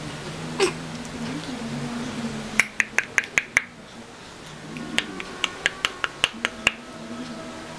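Two quick runs of sharp clicks, about five a second, the first about two and a half seconds in and the second about five seconds in, over a faint low wavering hum.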